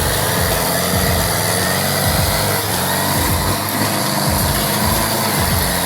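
Engine of a heavy machine running steadily.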